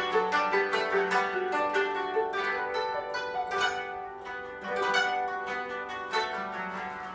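Koto ensemble playing a quick run of plucked, ringing notes, with a low note held beneath them in places.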